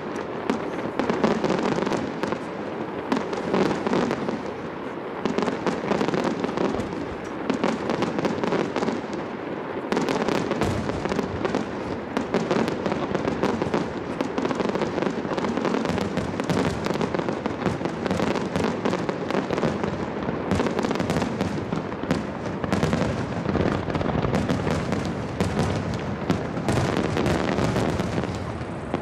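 Rapid-fire barrage of aerial firework shells (a starmine) bursting over the sea, a dense unbroken run of bangs, heavier from about ten seconds in. The bursts echo back off the mountains that ring the bay.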